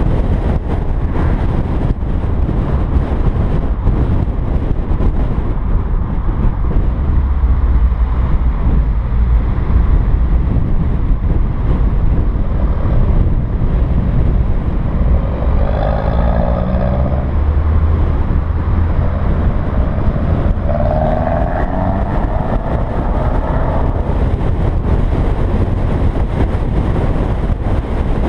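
Car driving on the road, its engine running under a steady low rumble of road and wind noise. The engine revs rise twice, about fifteen and twenty-one seconds in, as the car accelerates.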